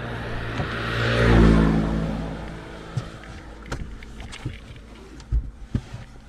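A road vehicle passing close by, its sound swelling to a peak about a second and a half in and then fading away. A few sharp knocks and clicks follow in the quieter second half.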